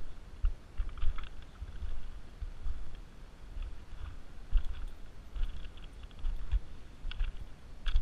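Footsteps crunching on loose river pebbles, an uneven walking pace of dull thuds, each with a scatter of small stone clicks.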